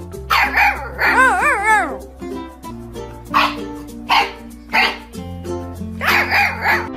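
Siberian husky puppy barking and howling in a high voice, over background music. It gives a wavering howl about a second in, then a string of short, sharp yaps.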